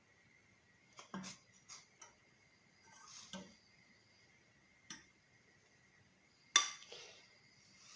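Metal spoon tapping and scraping against a small saucepan while skimming foam off heating milk. A few scattered light clinks, with one sharper knock near the end.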